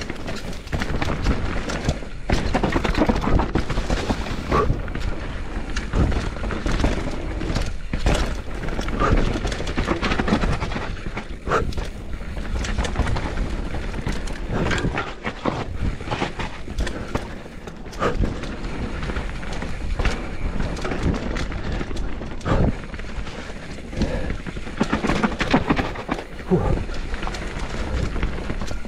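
Canyon Torque mountain bike riding fast down a rough dirt trail: tyres rumbling and crunching over dirt, roots and stones, with frequent sharp knocks and rattles from the frame, chain and suspension.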